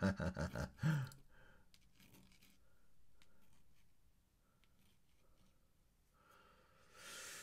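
Faint light ticks and strokes of an ink brush on paper in a quiet room, after a brief murmur of voice at the start, with a breath near the end.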